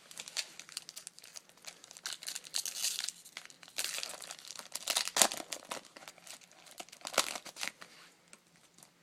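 A trading-card pack's foil wrapper being torn open and crinkled by hand: irregular crinkling and rustling, loudest about five and seven seconds in.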